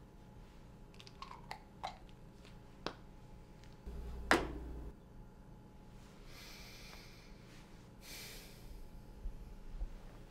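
Quiet room tone broken by a few light clicks and one louder sharp knock with a short low thud about four seconds in. Later come two soft hissing rustles, each about a second long, as a shirt collar and tie are adjusted by hand.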